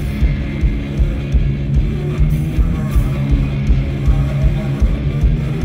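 Live band playing, with electric guitar and a steady beat.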